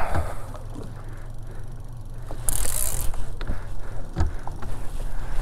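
Boat's outboard engine idling in gear with a steady low hum, overlaid by light mechanical clicks from the fishing reel and rod being worked, and a brief hiss about two and a half seconds in.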